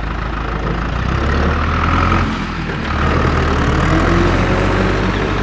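An engine running steadily at idle, a low even rumble.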